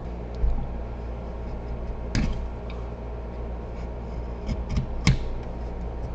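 Hand plane with a freshly sharpened blade taking a few short strokes on a piece of wood: brief scraping swishes about two seconds in and again near the end, over a steady low hum.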